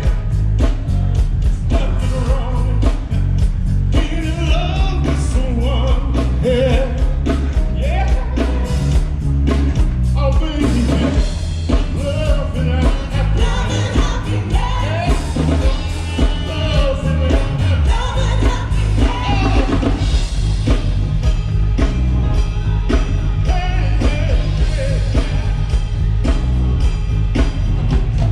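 Rock-and-roll style music with a singer over a steady drum beat and a heavy bass line.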